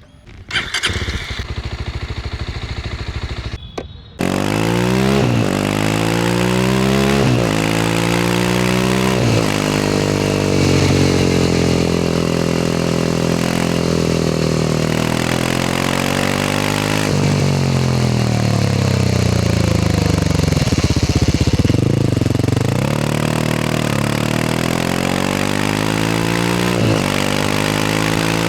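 Yezdi Scrambler 350's single-cylinder engine: the starter turns it over for about three seconds, then it catches and runs loudly. After that it is revved again and again, the pitch rising and falling with each throttle blip between spells of idle.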